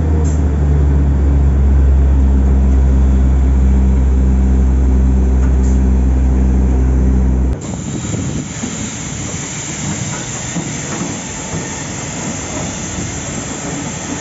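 A heavy diesel engine running with a loud, steady low drone. It stops abruptly about seven and a half seconds in, and a broad noisy rumble follows at a lower level.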